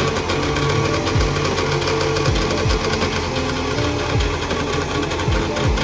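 A Trabant 601S's two-stroke, two-cylinder engine running steadily, with background music and its bass drum thumping underneath.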